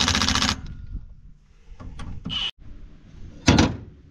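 Metal parts of a combine corn head being handled: a fast mechanical rattle that stops about half a second in, then two sharp metal clanks in quick succession about three and a half seconds in.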